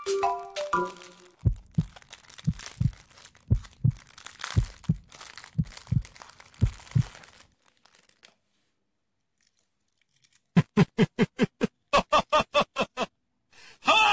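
Thin clear plastic wrapper crinkling and tearing as it is pulled open by hand, with a dozen dull low knocks from handling, over the last notes of a flute-like tune. After a few seconds of near silence, a fast pulsing musical beat comes in.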